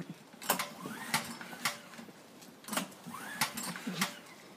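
Petrol lawnmower engine being cranked without catching: two short attempts, each a brief whir that rises and falls with sharp clicks, about a second in and again near three seconds.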